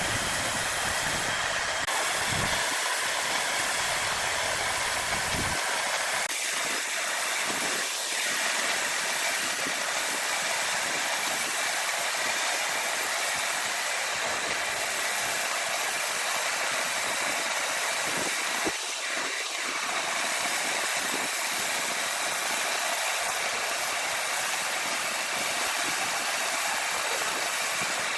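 Large sawmill wood saw running steadily with a constant mechanical noise. A few short whines rise and fall about a quarter and two-thirds of the way through.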